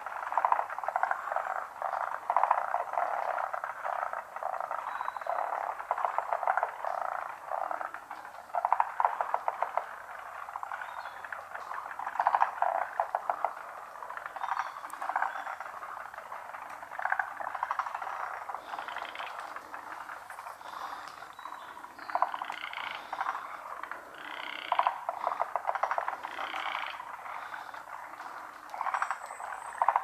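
A large chorus of frogs, many calling at once in overlapping trains of rapid pulsed croaks that swell and ease in loudness.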